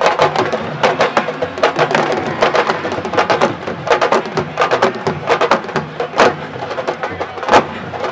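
Sabar drum ensemble playing fast, dense rhythms of sharp stick-and-hand strikes.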